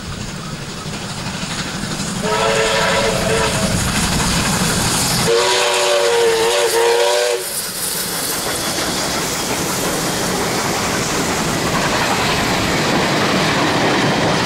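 Double-headed steam locomotives, NSW 59 class 5917 and Victorian R class R766, passing with a train: a steam whistle sounds twice, first about two seconds in for a second and a half, then again around five seconds in for about two seconds, over the steady noise of the locomotives. After that the passenger carriages roll past, their wheels running on the rails.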